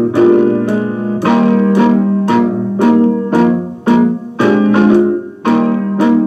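Piano music with a steady beat of struck notes and chords.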